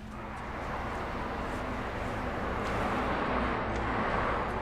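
Car noise: a steady rushing of engine and road that swells gradually.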